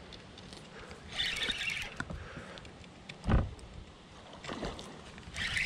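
Sounds on a small fishing boat on the water: two short spells of splash-like hissing and a dull thump about three seconds in, the loudest sound, followed by a lighter knock.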